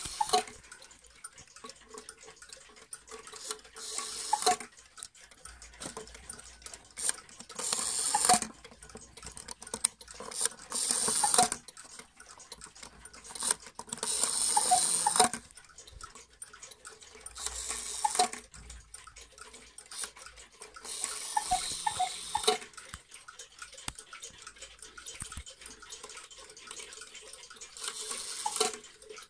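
East German (GDR) cuckoo clock calling the hour: about seven two-note cuckoo calls, each a breathy bellows whistle, spaced roughly three to four seconds apart. The movement ticks faintly between the calls.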